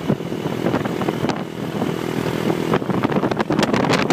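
Motorbike engine running steadily at road speed, heard from the pillion seat, with irregular crackling wind buffeting on the microphone.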